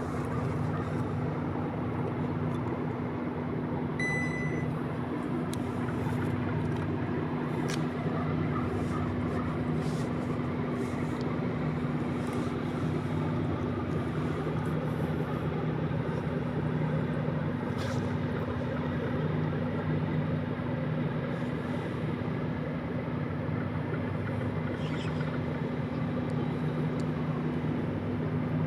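Tugboat's diesel engines running with a steady low drone while pushing barges. There is a short high-pitched tone about four seconds in.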